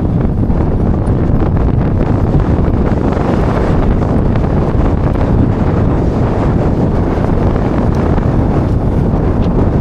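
Strong wind buffeting an action camera's microphone, a loud, steady, low rumble.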